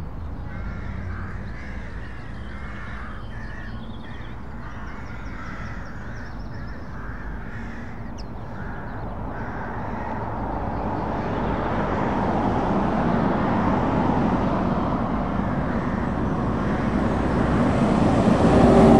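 Crows cawing over distant traffic, then a heavy DAF recovery truck's diesel engine and tyres growing steadily louder as it approaches, loudest near the end as it passes close by.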